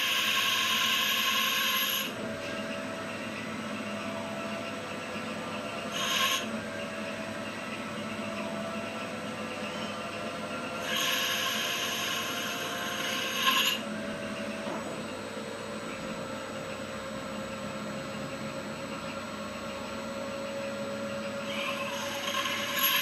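Small CNC lathe turning aluminium: the spindle and drives hum steadily, and several louder, higher-pitched stretches of cutting noise come and go as the tool takes its passes. In the second half the machine's tone slowly rises.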